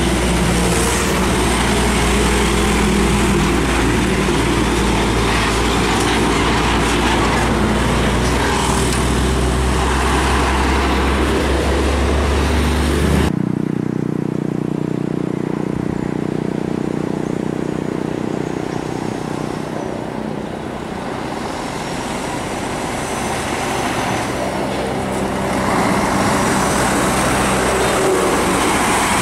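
Highway traffic at the roadside: heavy trucks running and passing, with a deep engine hum. About 13 s in, the sound changes abruptly to a quieter stretch, then the noise of passing traffic swells again near the end.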